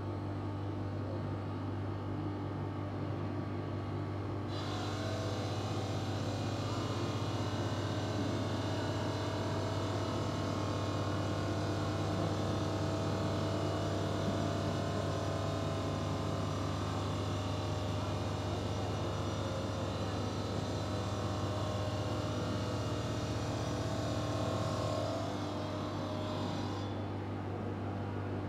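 Five-axis CNC stone bridge saw running with a steady low hum. About four seconds in, a louder whining hiss from the saw head starts suddenly, holds, and stops shortly before the end as the head works across a stone slab.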